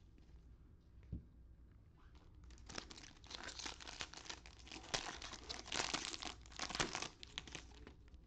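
A trading-card pack's foil wrapper being torn open and crinkled by hand for about five seconds, starting a couple of seconds in, with one short knock about a second in.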